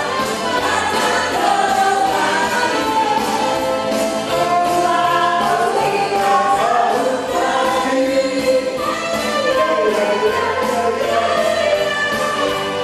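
A mixed group of men and women singing together as a choir, reading from song sheets.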